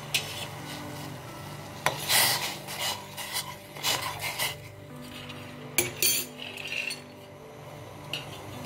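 Steel spoon stirring rock salt into hot water in a stainless steel pot, scraping against the pot's bottom and sides in several short bouts, with a couple of sharp clinks, as the salt dissolves.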